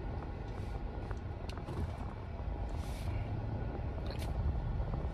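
Steady low rumble heard inside a car, with a few faint clicks about a second and a half in and again past four seconds.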